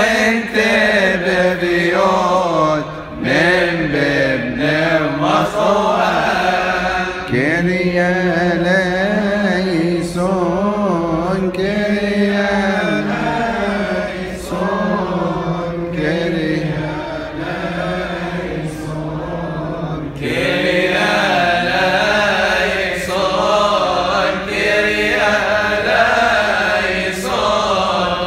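Men's voices chanting a Coptic Orthodox hymn together in unison, long drawn-out melismatic lines whose pitch winds slowly up and down with only brief breaks for breath.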